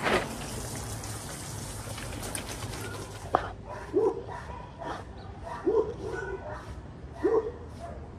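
Water spraying from a hose or shower during a dog's bath for the first few seconds. Then a dog barks three times, roughly a second and a half apart.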